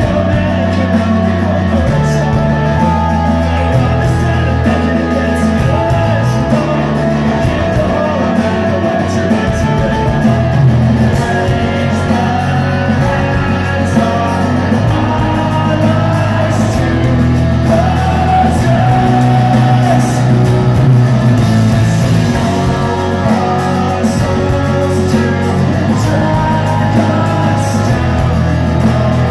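Live rock band playing loudly: a male lead vocal over acoustic guitar, electric guitar, bass and drums.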